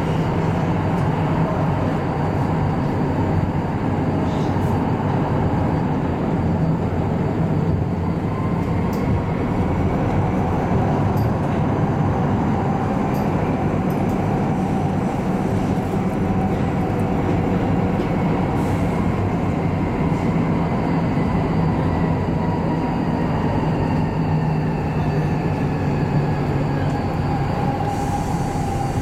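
Incheon Metro Line 2 driverless light-metro train running along the track: a steady rumble of wheels on rail with a motor whine. In the second half a faint high whine drifts slowly down in pitch.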